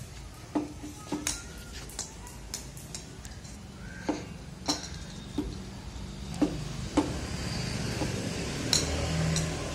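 Scattered sharp clicks and taps of a plastic cricket bat and plastic ball on a tiled floor, irregularly spaced, with one of the loudest near the end. A low steady rumble underneath grows louder in the second half.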